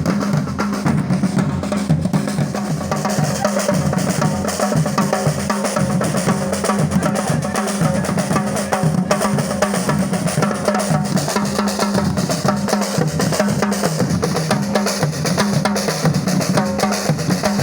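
Background music with a steady, drum-driven beat.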